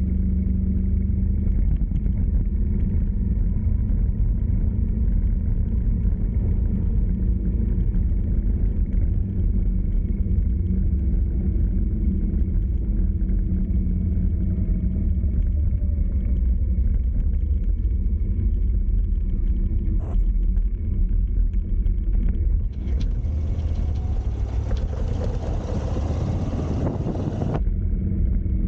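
A vehicle driving along a road: a steady low engine and road rumble. Near the end a louder rushing hiss comes in for about five seconds and then cuts off suddenly.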